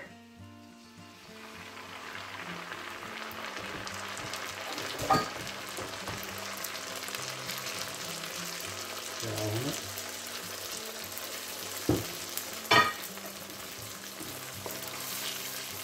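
Sizzling in a hot wok as homemade chilli hot sauce is poured into bubbling butter, garlic and brown sugar; the frying hiss builds over the first couple of seconds and then holds steady. A few sharp knocks cut through it, one near the middle and two close together near the end.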